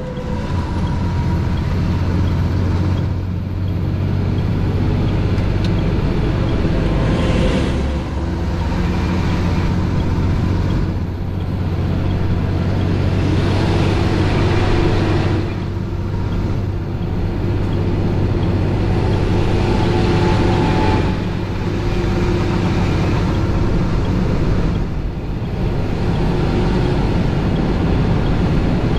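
Heavy-haul Western Star 4900SF semi running at highway speed under load: a steady low diesel drone mixed with wind and tyre noise, swelling and easing every few seconds.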